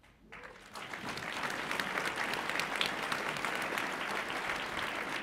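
Audience applauding, starting just after a brief hush and swelling over the first second to a steady clapping.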